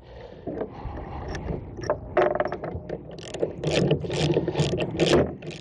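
Socket ratchet wrench being worked to loosen the bolts holding an injection pump to its base: a run of about seven quick rasping clicks, roughly three a second, in the second half, after some scraping and a short squeak about two seconds in.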